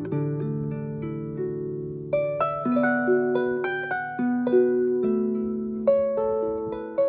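Background music: gentle harp-like plucked notes over a sustained lower accompaniment, each note starting sharply and fading.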